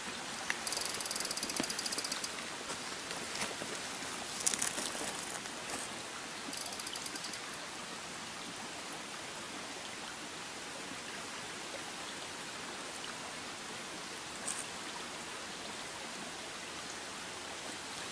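Steady rush of a small rocky brook, with a fly reel's click-and-pawl ratchet sounding in three short runs within the first eight seconds.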